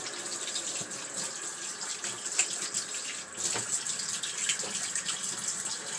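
Kitchen sink tap running steadily while hands are washed under the stream, with a few small splashes.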